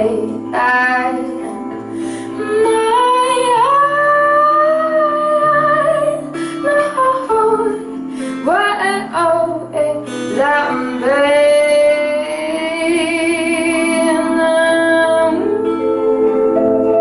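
A woman singing long held notes, with vibrato on the notes near the end, over strummed acoustic guitar and keyboard, played live.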